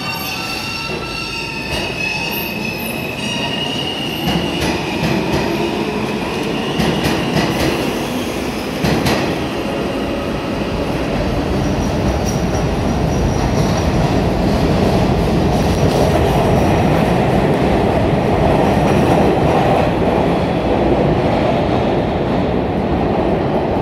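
R68 subway train pulling out of the station and picking up speed: a rising motor whine as it starts, then a growing rumble and clatter of wheels on rail with some wheel squeal as the cars run past.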